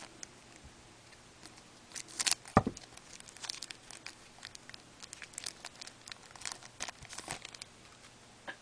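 Panini Contenders hockey card packs being torn open by hand, the wrappers crackling and crinkling in a run of sharp bursts, with a soft thump about two and a half seconds in.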